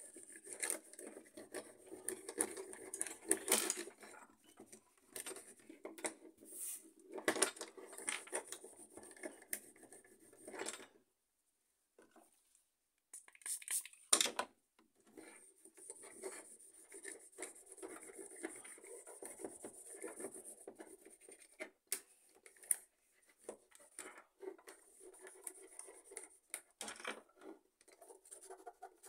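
Hand work on a laser-printer fuser's heater bar and plastic end pieces: irregular rubbing and scraping with scattered small plastic clicks and knocks. It goes quiet for a couple of seconds about eleven seconds in, and a sharper knock comes soon after.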